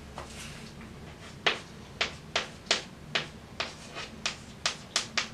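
Chalk tapping and scratching on a blackboard as figures are written: about eleven short, sharp taps, two to three a second, starting about a second and a half in.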